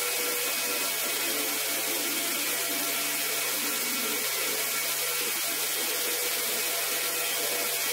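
Water spraying steadily with an even hiss as a shaggy rug is rinsed, with a faint steady hum underneath.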